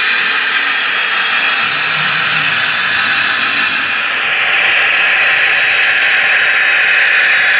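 HO-scale model locomotive running on the layout, a steady whirring hiss that grows louder about four seconds in as a model diesel approaches.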